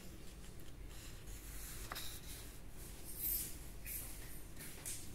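Faint rustling and scraping of the paper pages of an old hardbound book being handled, with a small tick about two seconds in.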